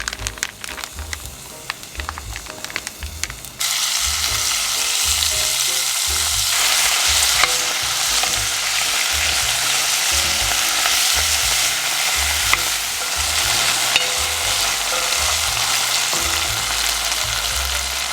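Beef tapa going into a hot pan. About three and a half seconds in, a loud sizzle starts suddenly and keeps frying steadily, with a few sharp pops of spattering fat. Before that there are light scattered clicks.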